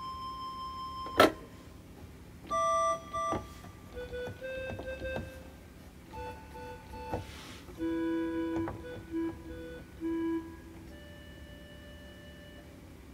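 Sparse electronic keyboard music: a held tone that cuts off with a sharp click about a second in, then scattered short notes and chords at changing pitches, ending on a faint held chord.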